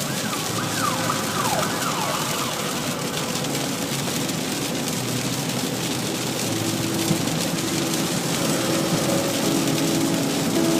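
A siren-like wail rising and falling several times during the first two seconds, over a steady hiss. From about the middle on, held musical tones come in.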